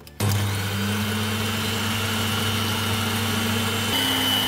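Electric mixer with twin beaters switched on about a quarter second in and running steadily, whipping cream in a steel bowl. It gives a steady motor hum with a thin high whine, and near the end the hum steps up slightly in pitch and the whine grows louder.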